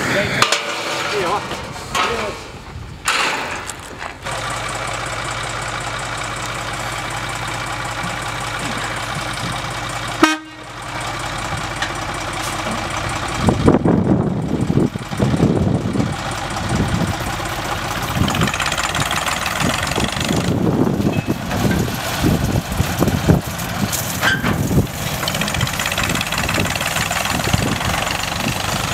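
Small Simplex diesel locomotive's engine running as it hauls a narrow-gauge passenger train away along the track, with irregular loud low buffeting about halfway through and again later.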